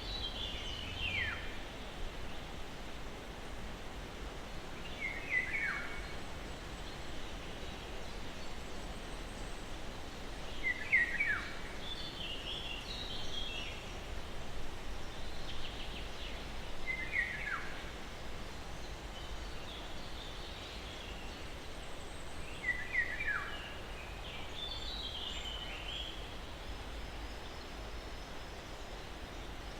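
Songbirds calling over a steady soft hiss of breeze in pine trees. One bird repeats a short falling phrase about every six seconds, and higher, thinner chirps come in between.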